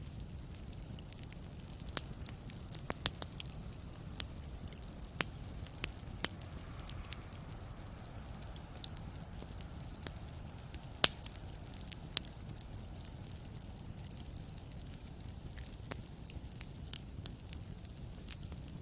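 Wood fire crackling in a fireplace: a steady low rumble of flame with irregular sharp snaps and pops, a few louder ones about a third and halfway through.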